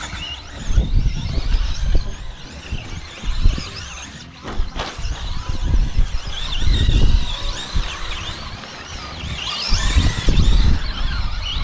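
Traxxas Slash 2WD RC short-course trucks racing: the brushless motors whine high, their pitch rising and falling with throttle and braking. Low rumbling bursts come and go underneath.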